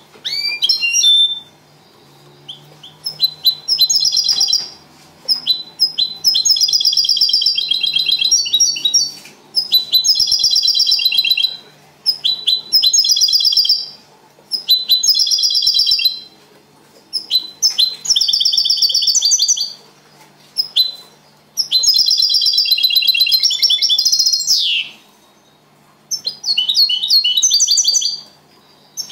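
European goldfinch singing the Málaga copia song: bouts of rapid, high twittering trills a second or two long, broken by short pauses.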